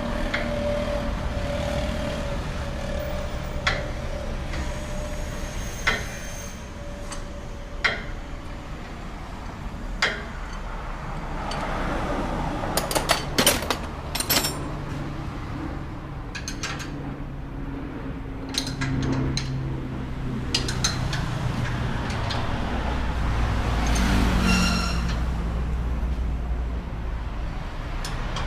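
Scattered metal clinks and knocks from hand tools working on a pickup's front suspension, over a steady low hum. There is a quick flurry of clinks about halfway through, and one brief ringing metal strike near the end.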